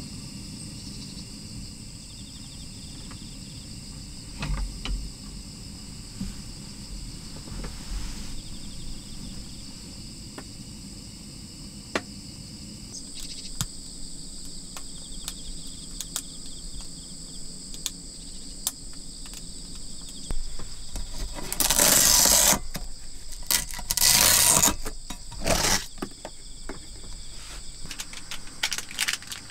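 Insects, likely crickets, chirping steadily in the background, with scattered light clicks and knocks of small items being handled on a table. Two louder hissing noises, each about a second long, come about two-thirds of the way through.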